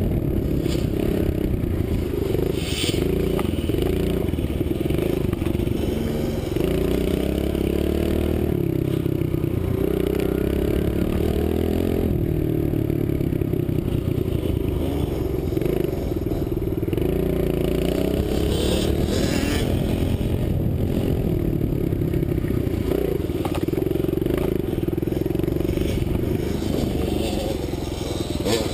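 Kawasaki KLX110 dirt bike engine under way, its pitch rising and falling as the throttle opens and closes, with wind rush on the helmet-mounted microphone.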